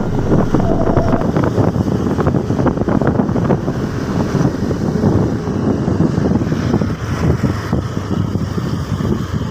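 Wind buffeting the microphone: a loud, steady low rumble with many short crackles.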